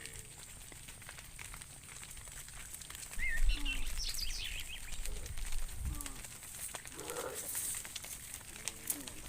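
Outdoor pasture background between cow calls: a low rumble for about three seconds in the middle, a brief bird chirping around the same time, and a faint, short moo near the end.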